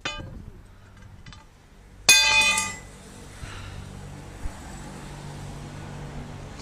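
A brief high-pitched tone with many overtones right at the start, then a much louder one about two seconds in that lasts under a second, followed by a steady low engine hum.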